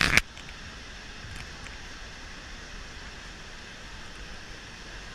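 Steady rushing roar of Niagara Falls' falling water, with a brief loud burst of noise right at the start.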